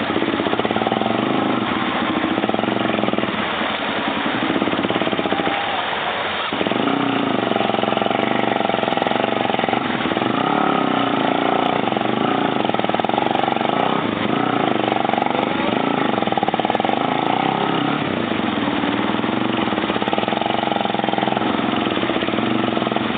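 ATV engine running under load, its pitch rising and falling over and over, about every two seconds, as the throttle is worked.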